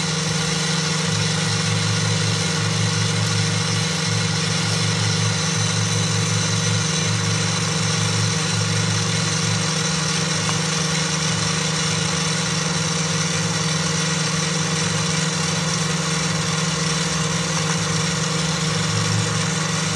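Stand mixer motor running steadily at medium speed, its wire whisk beating egg whites in a stainless steel bowl for meringue, a constant machine hum.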